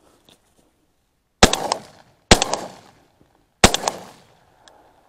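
Three shotgun shots in quick succession, about a second apart, each trailing off in a short echo.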